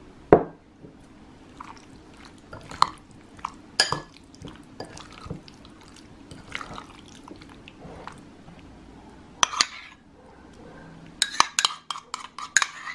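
A metal spoon stirring thick yogurt-dill sauce into roasted zucchini in a glass bowl: wet squelching broken by sharp clinks of the spoon against the bowl, with a quick run of clinks near the end.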